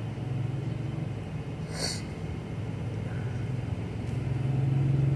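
Inside the cab of a 2021 Ford F-150 with the 5.0-litre V8 cruising on the highway: a steady low engine drone mixed with road noise, growing slightly louder towards the end. A brief hiss sounds about two seconds in.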